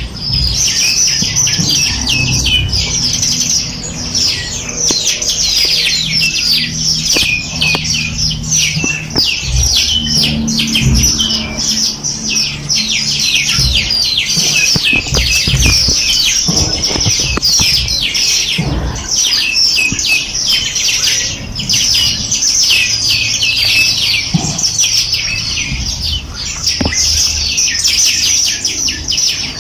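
A flock of small songbirds chirping and twittering together: a dense, continuous chorus of quick, high, overlapping notes, with a low rumble underneath.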